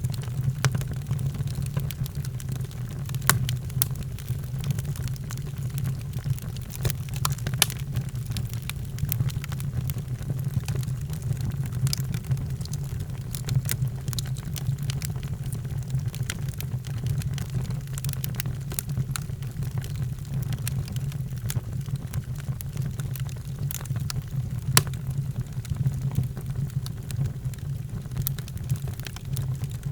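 Wood fire burning in a fireplace: a steady low rumble of flames with scattered sharp crackles and pops from the burning logs, one of the loudest pops near the end.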